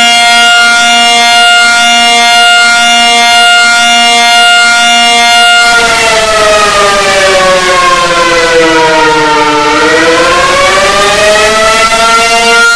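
Emergency alert alarm sounding as a loud, buzzy siren tone. The tone holds one steady pitch for about six seconds, slides down in pitch over about four seconds, then rises back to the same steady pitch over about two seconds.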